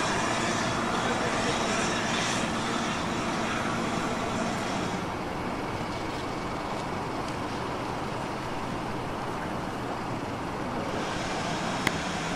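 Steam locomotive hissing steam as it moves slowly along the line. The hiss dies away about five seconds in, leaving a steady low locomotive rumble, with a single sharp click near the end.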